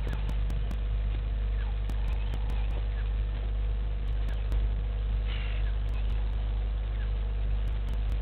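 Steady low hum with a few faint, short, falling chirps about once a second.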